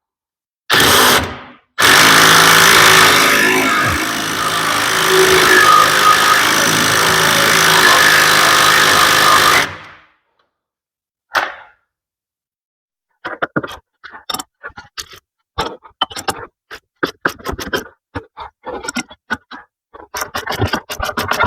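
A power tool tightening the sway bar link's jam nut: a short burst, then a steady run of about eight seconds that stops abruptly. Later comes an irregular string of short clicks and taps, thickening near the end.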